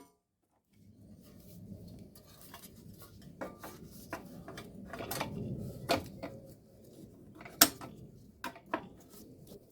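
Scattered light metallic clinks and clicks of tools and small metal parts being handled, one sharper clink about three-quarters of the way through, over a low steady background rumble.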